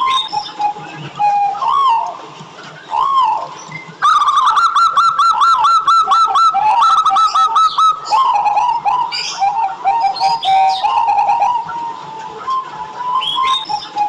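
Zebra doves (perkutut) cooing, with a louder run of quick, staccato repeated coos from about 4 to 8 seconds in. Faint high chirps of small birds sound behind them.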